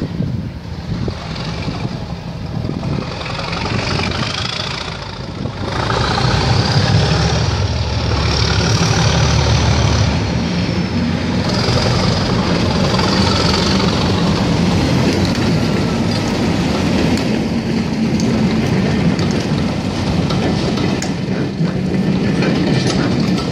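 Class 37 diesel locomotive's English Electric V12 engine hauling a passenger train past, loud and heavy. A high turbocharger whistle rises as it approaches and falls away as it passes, and the coaches' wheels click over the rail joints near the end.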